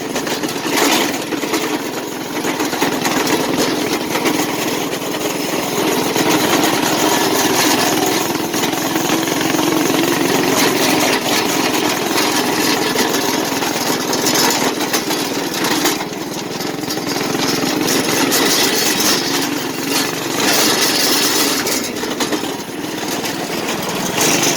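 Yerf Dog go-kart's small engine running on the move at a moderate, fairly steady speed, easing off briefly a few times.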